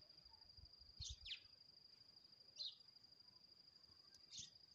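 Faint outdoor ambience: a steady high-pitched insect tone, with three short bird chirps spread across it, the first with a quick downward sweep about a second in.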